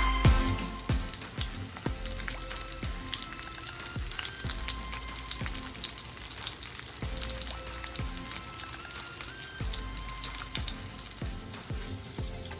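Breaded chicken cutlets frying in hot oil in a pan: a steady crackling sizzle, with soft background music underneath.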